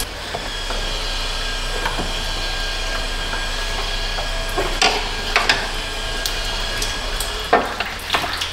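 Hand nut driver working the screw of a radiator hose clamp, making a few light metallic clicks and knocks spread through, over a steady hiss.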